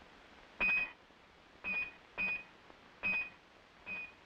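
A sledgehammer striking a metal stake to anchor a rocket launcher's trail into the ground: five metal-on-metal blows at uneven intervals, each giving a short, clear ring.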